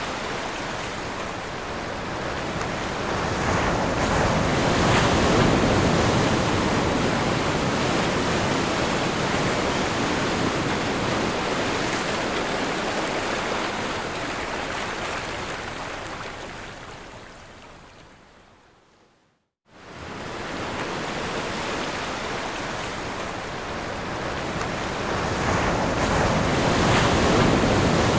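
Ocean waves washing onto shore, a steady rushing surf that swells and eases. About two-thirds of the way through it fades out to silence and then starts again abruptly.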